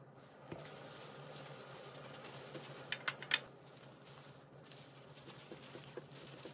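Plastic-gloved hands handling and rolling gimbap on a wooden cutting board, with faint rustling, three quick sharp clicks about three seconds in, and a steady low hum underneath.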